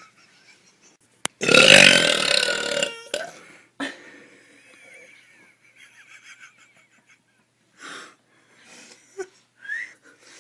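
A woman burping: one loud, drawn-out burp of about a second and a half, starting about a second and a half in, with its pitch sagging toward the end. A few short, much fainter sounds follow later.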